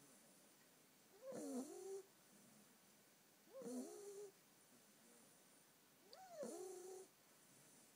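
Ten-week-old Staffordshire bull terrier puppy snoring in her sleep: three faint snores about two and a half seconds apart, each under a second long with a wavering, whistly pitch.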